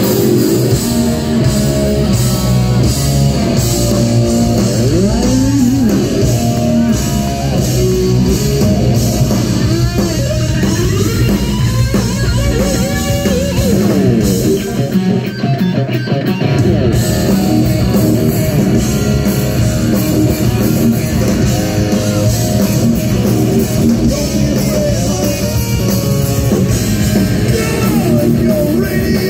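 Live hard rock band playing loud through a PA: distorted electric guitar with bending notes over drums and bass. The bass and drums drop out for a moment about halfway through.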